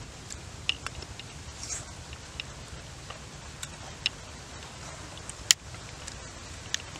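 Eating sounds: a person biting and chewing cooked river fish held in the hands. Scattered sharp smacks and clicks, the sharpest about five and a half seconds in, over a steady low background noise.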